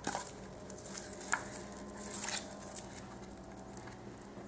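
Faint handling noise of plastic packaging around a hard drive: light rustling with a few small clicks.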